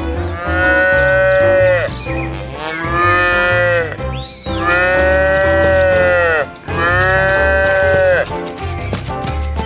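Cattle mooing: four long moos in a row, each rising and then falling off in pitch, over background music with a bass line.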